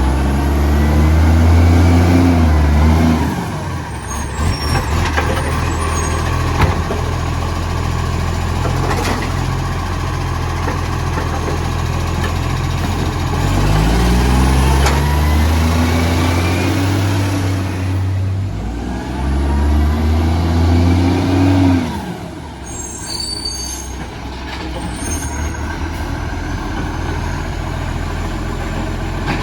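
Garbage truck's diesel engine, its exhaust leaking, revving up twice under load and dropping back to idle each time. Short bursts of air hiss follow the second drop.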